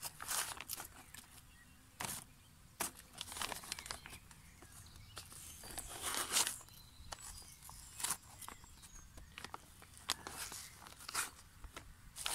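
Small hand trowel digging and scraping out wet clay soil through a slit in a plastic pond liner: irregular scrapes and crunches with some crinkling of the liner, the strongest about six seconds in.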